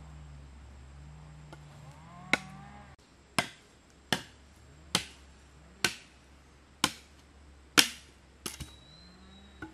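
Repeated sharp blows of a tool striking wood: seven hard strikes about a second apart, then two lighter ones near the end, over a steady low hum.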